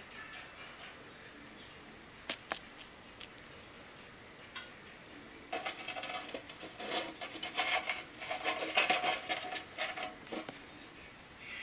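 Smooth knob-tailed gecko biting and chewing a feeder insect: two sharp clicks, then from about halfway a few seconds of dense crackling crunches.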